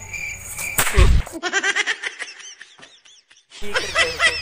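A firecracker going off with one loud bang about a second in, followed by a rapid run of short, high-pitched chirps.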